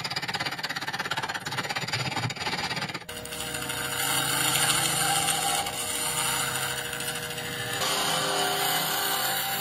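Wood lathe spinning a resin-and-wood blank while a carbide hollowing tool scrapes out its inside: a steady motor hum with cutting noise. The sound changes abruptly about three seconds in and again near eight seconds.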